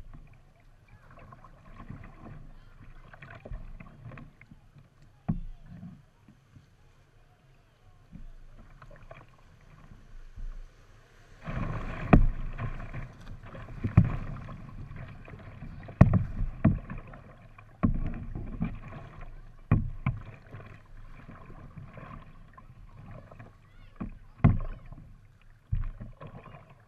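Water splashing and rushing along a kayak's hull, with irregular thumps and knocks carried through the boat; it grows loudest about halfway through as the kayak runs a small rapid and water splashes up onto the bow.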